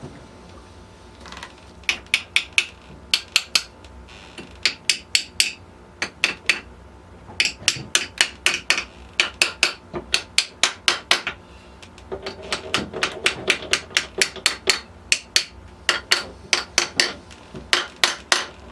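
Hammer tapping a part into place in the overdrive being assembled: quick runs of light, sharp taps, about four to six a second, with short pauses between the runs.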